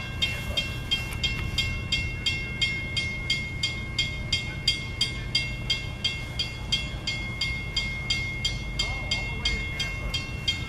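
Railroad grade-crossing warning bell ringing in an even rhythm of about three strikes a second, the signal that a train is approaching the crossing. A steady low rumble runs underneath.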